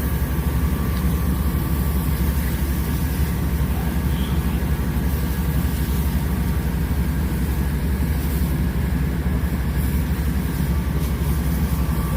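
Steady, even drone of a vehicle engine running, strongest at the low end.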